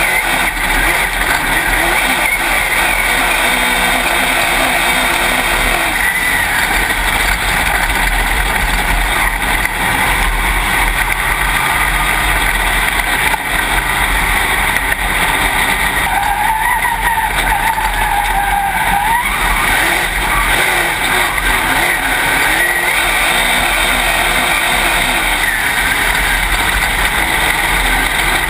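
Dirt late model race car's V8 engine heard from inside the cockpit, running loud over the roar of the car on the dirt track, its pitch rising and falling with throttle.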